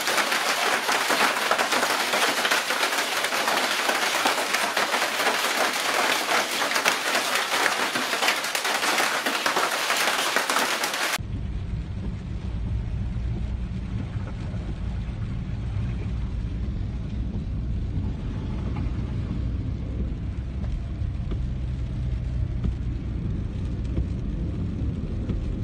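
Hail and heavy rain pelting a tiled roof: a dense, even clatter of countless small impacts. About eleven seconds in it cuts to a deep, steady rumble of the storm heard from inside a car.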